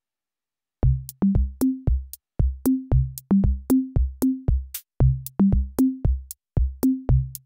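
Background electronic music: a drum-machine beat of sharp hits, each with a low bass note, in a short repeating pattern that steps up in pitch. It starts about a second in.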